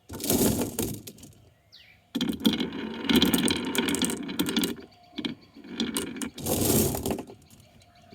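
Marbles rolling and clattering down a wooden marble run, in three long bursts of rapid clicking and rattling with short lulls between.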